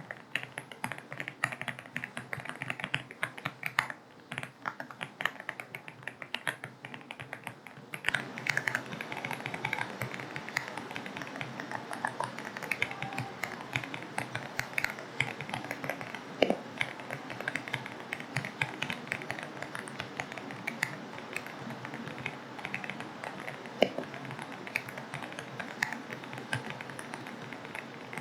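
Rapid typing on an AULA F75 mechanical keyboard with linear switches: a dense, irregular run of key clicks. About eight seconds in, a steady rain hiss comes in underneath the typing.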